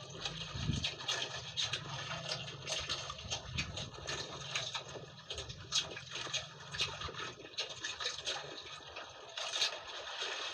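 Water splashing and sloshing in a boat's fish hold as a man reaches in by hand among the live fish, with many small irregular splashes and a low steady hum underneath.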